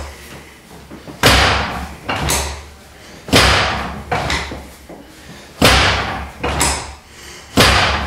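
About seven loud, sharp thuds, roughly one a second, each with a short ring-out: a chiropractor's hand thrusts on the sacrum and pelvis, with the segmented adjusting table's drop section slamming down under the patient.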